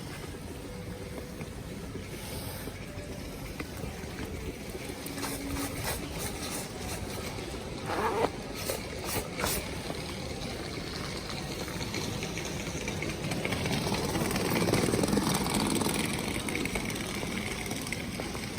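Street ambience with a steady hiss, and a vehicle passing on a wet, snowy street: its sound swells about two-thirds of the way through, then fades. A few sharp clicks come a little after the middle.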